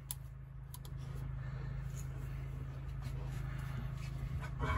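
Light clicks and handling noises from the screws and parts of a folding knife being worked by hand, over a steady low hum. A brief, louder sound with a pitch to it near the end.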